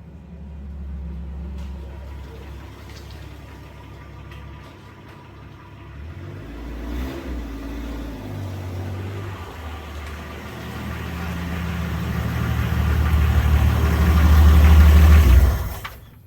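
Car engine running, growing steadily louder over the last several seconds and then cutting off suddenly.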